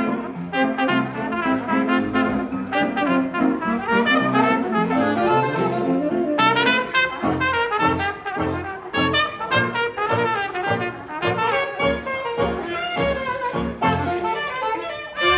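Hot jazz band playing live, a brass horn leading over a rhythm section of banjo and string bass, with a bass line stepping along underneath.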